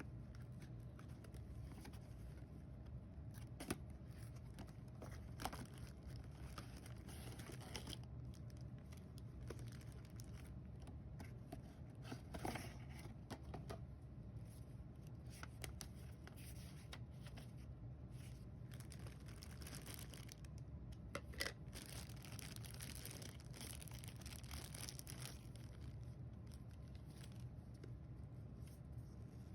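A smoke and carbon monoxide detector's packaging being torn open and handled: faint tearing and crinkling with scattered sharp clicks, over a steady low hum.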